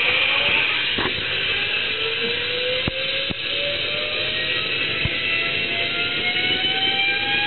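Jet-turbine start-up: a whine rising slowly and steadily in pitch over a steady rushing noise as the turbine spools up, with a few sharp clicks.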